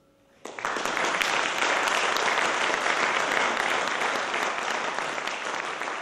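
A brief near silence, then an audience breaks into applause about half a second in. The clapping is dense and steady, easing slightly near the end.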